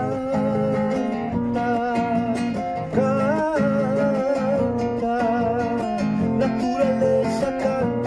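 A man singing with his own strummed acoustic guitar accompaniment, holding long, wavering sung notes over steady guitar chords.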